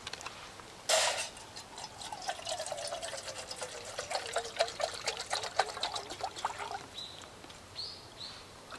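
Water being poured in a steady stream, starting about a second in with a splash and running for about six seconds, its pitch falling gradually as it goes.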